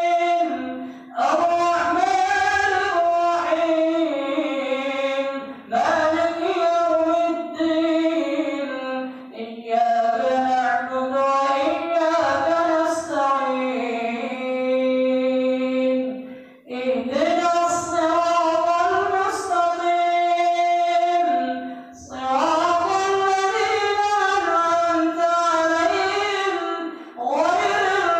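An imam reciting the Qur'an aloud in a melodic, drawn-out chant into a microphone during congregational prayer. A single high voice sings long held phrases, broken every few seconds by short pauses for breath.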